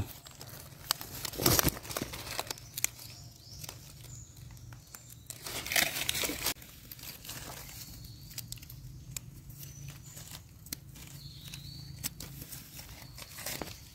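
Rustling and crackling of dry leaf litter with scattered small clicks, from hands picking wild mushrooms and trimming their stems with a small knife; a louder rustle comes about six seconds in.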